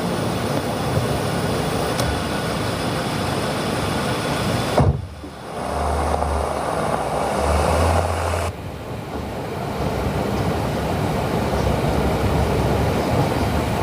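Motor vehicle running: a steady engine and road rumble with no speech. The sound changes abruptly about five seconds in and again past eight seconds.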